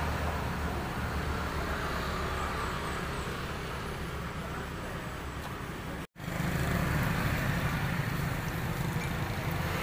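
Steady background noise, a low rumble with a hiss over it, cutting out for an instant about six seconds in.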